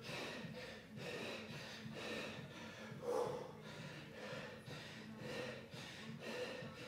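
A man breathing hard in short, forceful exhalations about once a second, in time with his kettlebell swings, while he is winded partway through a workout finisher.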